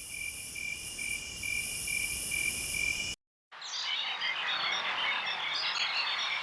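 Insects trilling steadily in high, pulsing tones, cut off abruptly about three seconds in; after a brief silence, a dense chorus of many short high chirps.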